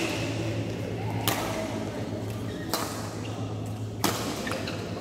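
Badminton rackets striking a shuttlecock during a rally: four sharp cracks, evenly spaced a little over a second apart, over a steady low hum in a large echoing hall.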